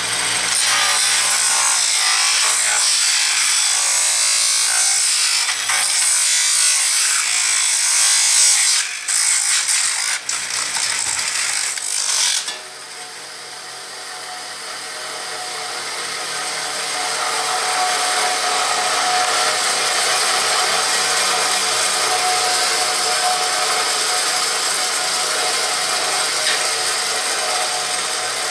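Bench grinder grinding down a plastic computer-keyboard key: loud, harsh grinding for about twelve seconds, with a few brief breaks, then the grinding noise drops off suddenly and the grinder runs on steadily.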